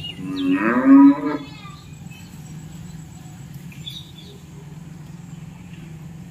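A goat bleating once: a loud, quavering call about a second and a half long.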